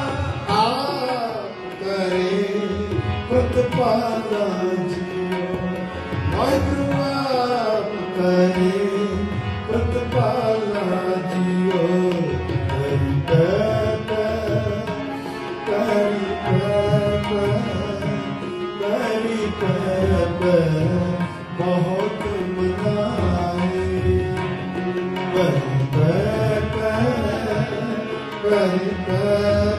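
Sikh kirtan music: tabla drumming with harmonium and gliding sung melody over a steady drone.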